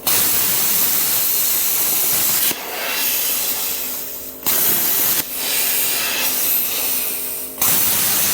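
Plasma cutter cutting rusted sheet metal, a loud hiss of arc and air that starts suddenly three times, with quieter, fading air hiss between the cuts.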